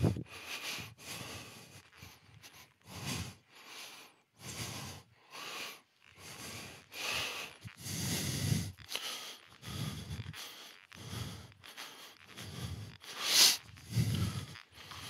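A person breathing heavily close to the microphone in short, irregular puffs, about one or two a second, the loudest near the end.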